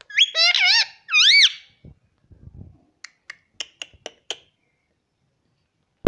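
Indian ringneck parrot calling twice in quick succession, first a broken, warbling call and then a shrill squawk that rises and falls in pitch. After a pause comes a quick run of about seven short, sharp ticks.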